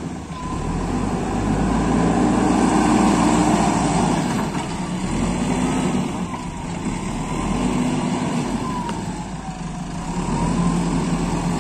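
JCB backhoe loader's diesel engine working under load as the front bucket pushes into and scoops soil. Its note swells and eases several times, with a faint whine gliding up and down in pitch.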